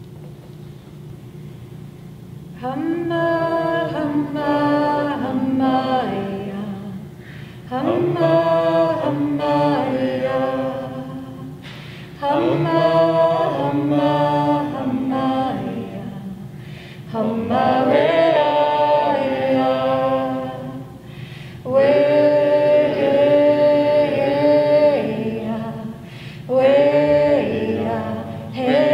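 A small group of voices singing an Indigenous hand-drum song with no drum accompaniment, in six phrases of three to four seconds each with short pauses between.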